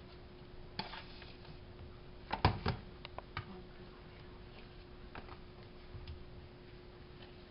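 A spoon scrapes and taps against small plastic tubs, and the tubs knock on a stainless-steel counter, as a crumbly mix is spooned into them. These make scattered light clicks and knocks, with a louder cluster of knocks about two and a half seconds in. A faint steady hum runs underneath.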